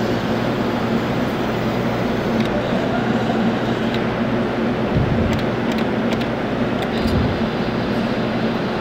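Claw machine being played: a steady electric hum from the machine under a noisy background, with a few light clicks and two low thumps about five and seven seconds in.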